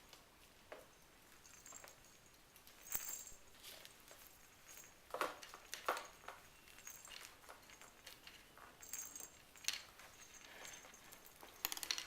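RagaMuffin kittens playing with small toys: scattered soft taps, rustles and light clicks, with a few sharper knocks.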